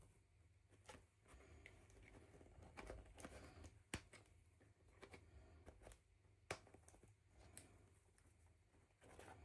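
Near silence with faint handling sounds of doll toys and packaging: soft rustles and a few small sharp clicks, the clearest about four seconds in and another about six and a half seconds in.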